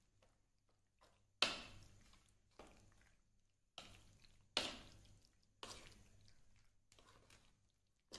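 Wet squelching of raw chicken strips in an egg, soy sauce and cornflour marinade being stirred with a plastic spoon in a bowl: a string of sudden wet strokes, roughly one a second, the loudest about a second and a half in.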